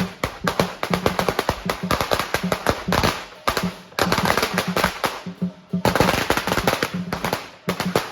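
Strings of firecrackers going off in rapid, continuous crackling, with a few denser volleys, over the steady beat of a lion dance drum.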